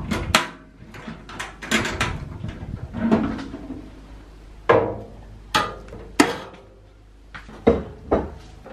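Metal latches on a storage trunk clicking open and the lid lifting, then a string of sharp knocks and clinks as ceramic ramekins, a glass bowl and a wooden spoon are lifted out of the trunk. The clicks come close together at first; five separate knocks follow from about halfway in.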